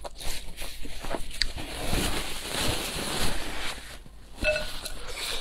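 Close-miked eating sounds: crisp fried dumplings being handled and crunched.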